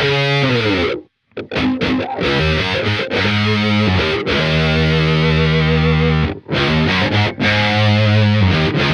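Electric bass riff played through an MXR Cry Baby Q Zone parked (fixed) wah, with an Electro-Harmonix Micro POG adding an upper octave. There is a short break about a second in, and held notes in the middle.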